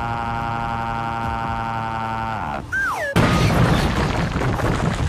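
Cartoon rocket sound effects: a steady, pitched engine drone that drops in pitch about two and a half seconds in, then a short falling whistle and a loud crash about three seconds in that rumbles on.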